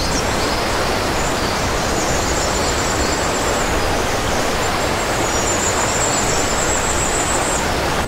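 Steady rushing of a waterfall cascading down a rocky mountain stream, an even, unbroken roar of white water. A faint, thin high tone comes and goes above it.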